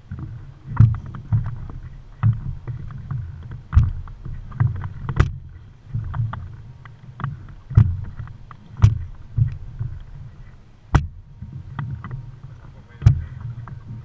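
Small fishing boat rocking on ocean swell: water slapping against the hull, with irregular sharp knocks over a constant low rumble.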